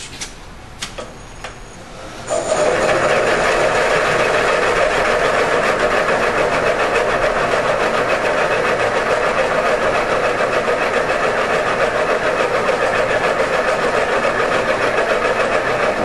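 Seat-and-guide machine spindle driving a cutoff tool down onto a valve guide in a small-block Chevy cylinder head, trimming the top of the guide. A few light clicks come first, then about two seconds in the machine starts and runs loudly and steadily with a fast, even flutter.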